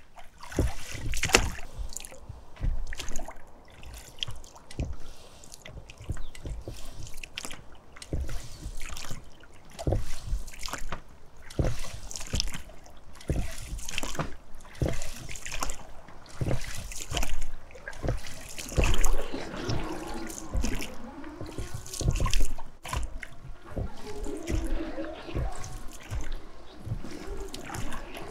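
Oars of an inflatable rowboat dipping and pulling through shallow water, a splash and drip with each stroke about once a second. A wavering pitched sound joins in during the second half.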